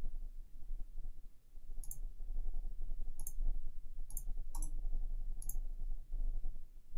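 Computer mouse clicking: about five short, sharp clicks spaced irregularly over a few seconds, over a low steady room hum.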